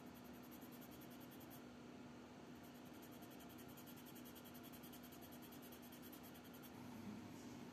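Faint rubbing of fingertips pressing and smoothing tape down onto the edge of a plastic model helmet, over a steady low electrical hum.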